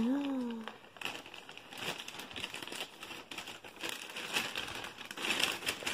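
Plastic packaging crinkling in irregular bursts as it is handled, after a brief word from a woman's voice at the start.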